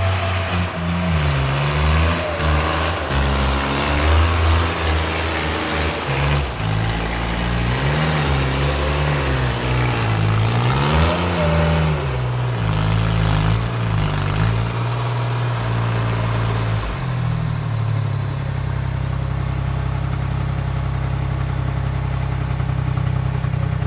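Sonalika compact tractor's diesel engine, revved up and down over and over as the tractor rears its front wheels into a wheelie. About eighteen seconds in it settles to a steady low run while the tractor stays balanced on its rear wheels.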